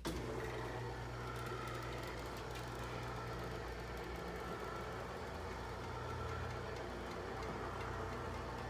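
Electric motor of a motorized retractable awning running steadily as the awning extends on its folding arms: a constant hum with a faint higher whine.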